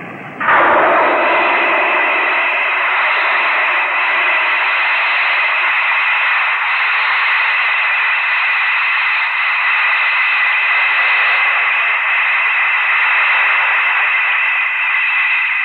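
Loud, steady hissing noise from a monster-film soundtrack, with a faint high whine running through it; it cuts in abruptly about half a second in.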